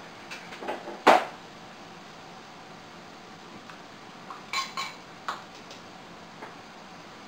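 Kitchen utensils clinking and knocking against pots and glass canning jars: a few light knocks, one sharp knock about a second in, and a short run of clinks a little past halfway.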